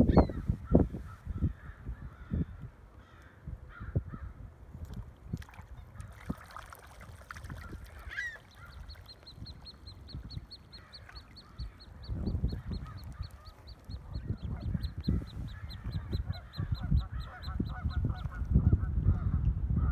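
Wind buffeting the microphone in gusts, with scattered waterfowl calls. Past the middle a rapid run of high peeps comes about four a second for several seconds.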